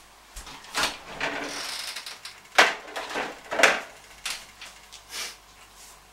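Refrigerator door being opened: a rustle and a few sharp clicks and knocks, the loudest about two and a half and three and a half seconds in.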